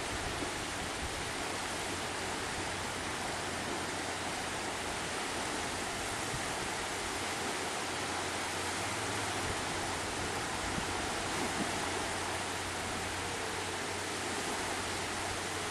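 Lake surf washing onto a sandy beach, an even, continuous rush with no distinct events.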